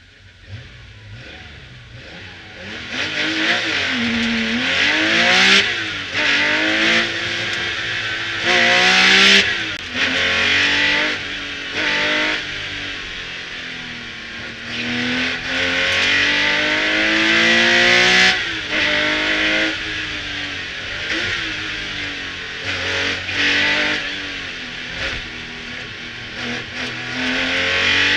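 Porsche 911 Carrera 3.0 RS Group 4 rally car's air-cooled flat-six, heard inside the cabin. It pulls away from near idle and then revs hard through the gears at speed: the pitch climbs again and again, with a sharp drop at each gear change or lift.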